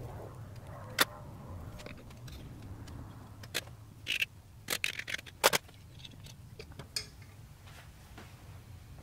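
Steel setup block, clamp and tools being handled and set down on a metal welding table: a string of short sharp metal clinks and knocks, busiest and loudest about halfway through, over a low steady hum.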